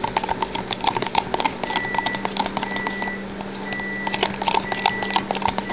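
A spoon clicking and scraping in a clear plastic bowl as a thick sauce is stirred. From about two seconds in, a kitchen appliance timer beeps about once a second over a steady low hum, signalling that the boneless chicken wings are done.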